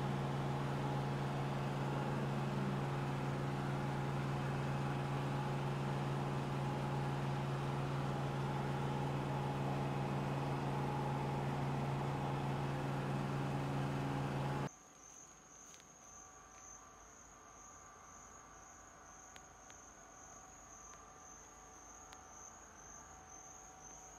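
A motor hums steadily at an unchanging pitch, then cuts off abruptly about two-thirds of the way through. After it, quieter, an insect trills on one continuous high note.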